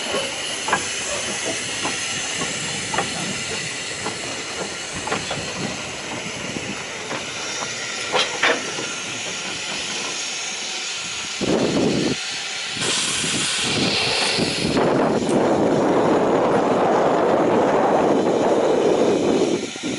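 Hunslet-built narrow-gauge saddle-tank steam locomotive Blanche hissing steam, with scattered light metallic clicks. Near the middle there are short blasts of steam, then from about three-quarters of the way through a louder, steady rush of steam from the front of the engine, which stops just before the end.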